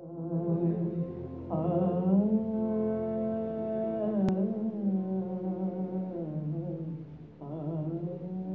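Slow, unmetred opening of a ghazal performance: a held low drone with a wavering, gliding melody line above it that enters twice, and no tabla strokes yet. A single click sounds near the middle.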